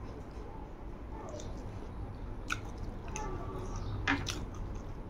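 Close mouth sounds of a person chewing a mouthful of rice and curry: soft wet squishing, with a few sharp clicks, two of them close together about four seconds in.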